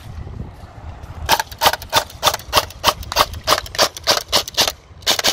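Beretta ARX 160 airsoft electric rifle (AEG) firing a string of shots, about five a second for three and a half seconds, then two more near the end.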